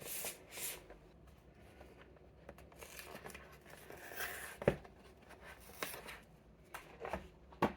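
Phone box being opened and its paper packaging handled: faint rustling and tearing with a few small taps, the sharpest a little past halfway.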